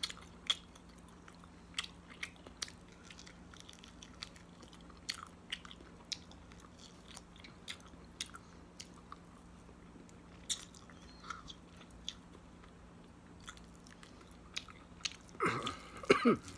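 Close-up eating sounds of a man eating rice and goat meat curry with his fingers: chewing and lip smacks, with scattered sharp mouth clicks over a faint steady hum. Near the end a voice is heard briefly.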